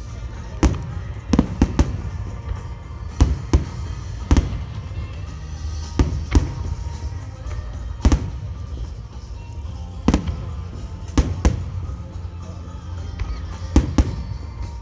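Aerial fireworks shells bursting: a dozen or so sharp booms at uneven spacing, often a second or two apart and sometimes in quick pairs, over a low rumble. Music from loudspeakers plays underneath.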